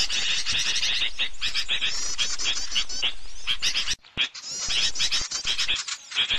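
Lure recording of small birds (suara pikat burung kecil) used to call birds in for trapping: dense, rapid high chirps and twitters from many birds at once. The sound drops out briefly about four seconds in, then resumes.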